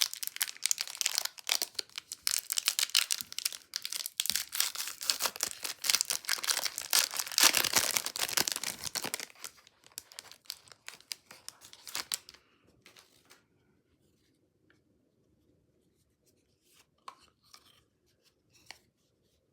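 A trading-card pack wrapper being torn open and crinkled in the hands, a dense crackling for about nine seconds that dies away by about twelve seconds in. A few faint clicks follow as the cards are handled.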